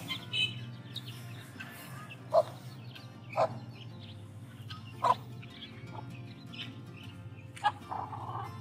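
Hens clucking: four short, loud clucks a second or more apart, with faint chick peeping near the start, over a steady low hum.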